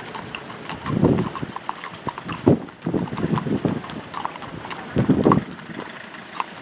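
Several horses walking past on a sandy road, their hooves clip-clopping in an uneven, overlapping rhythm, with a few louder, duller thuds among the clops.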